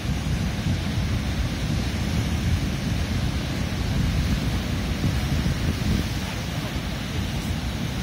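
Rough ocean surf breaking and churning against a rocky shore: a steady rush of waves over a deep rumble.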